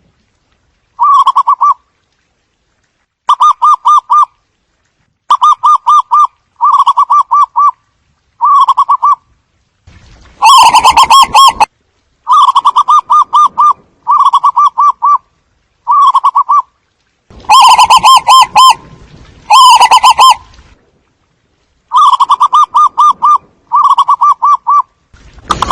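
Zebra dove cooing: a string of short phrases, each a fast rolling run of notes, repeated about once a second, a few of them louder and distorted.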